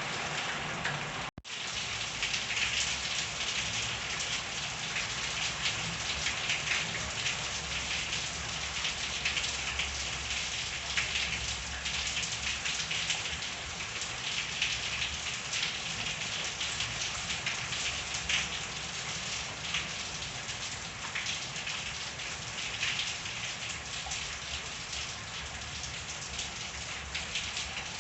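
Steady rain falling, with many separate drop ticks over an even hiss. The sound cuts out for a moment about a second and a half in.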